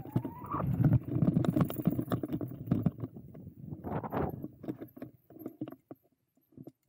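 E-mountain bike descending a rough trail: tyres thudding and the bike rattling over bumps in an irregular run of knocks, dying away for a moment near the end.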